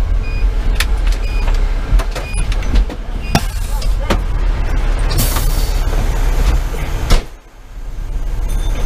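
Cab noise of a Pierce Velocity fire engine: its Detroit Series 60 diesel running with a steady low rumble, rattles and knocks. A short hiss comes about five seconds in, and a sharp thump near the end, after which the noise drops. Faint short beeps sound in the first couple of seconds.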